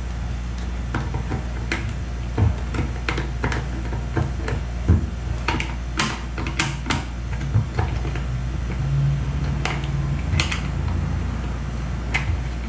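Scattered small clicks and taps of hands handling the plastic parts of a Taiff hair dryer while a screw is driven in with a small screwdriver, over a steady low hum.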